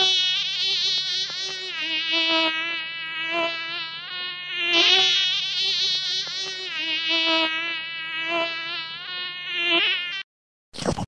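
Buzzing mosquito sound effect: a continuous whining drone whose pitch wavers up and down as it flies about. It cuts off shortly before the end, and a short burst of noise follows.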